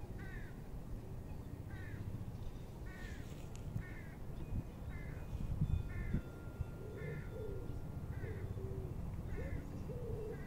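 A bird calling over and over, a short call about once a second. From about seven seconds in, a second, much lower-pitched bird call repeats alongside it.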